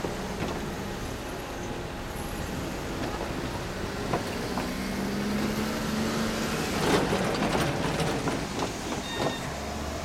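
Steady rumble of a container freight train on the line, with scattered knocks and a faint rising hum about halfway through. It is loudest about seven seconds in.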